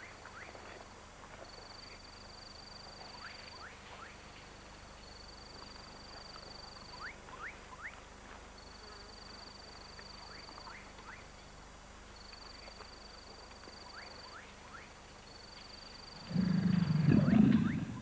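Forest ambience: a high, steady call repeats about every two seconds, with short rising chirps scattered through. Near the end a gorilla gives one loud, low roar lasting about a second and a half.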